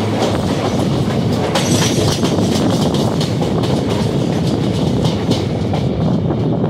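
Loud, steady rumble and rapid irregular clatter of train wheels over rail joints, heard from the open door of a moving Indian Railways passenger train. Another passenger train passes close alongside on the next track.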